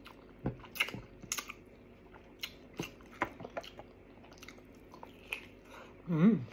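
Close-up mouth sounds of someone chewing and biting meat off sinigang pork neck bones: a scatter of sharp, wet clicks and smacks. Near the end comes a short hummed "mm" of enjoyment, the loudest sound.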